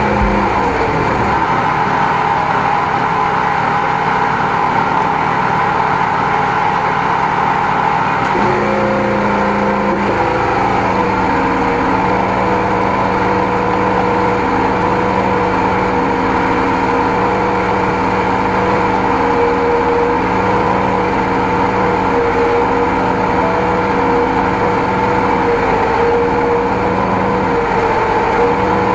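High-pressure drain jetting machine running steadily as it pumps water through the hose into a clogged drain line, with a steady whine; its note shifts about eight seconds in.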